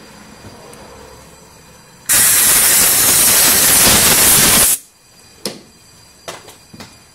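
A loud, steady hiss of a pressurised gas jet, starting about two seconds in and lasting nearly three seconds, then a few light clicks of parts being handled.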